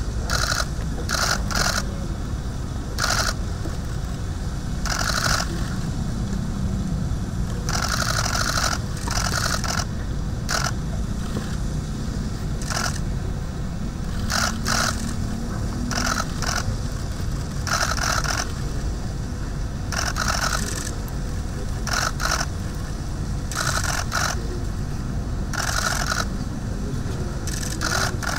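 Press cameras' shutters clicking in short, irregular bursts, several dozen times, over a steady low rumble.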